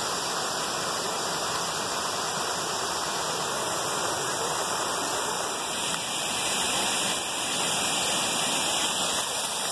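Steady rush of whitewater from a small creek cascading down a steep slope.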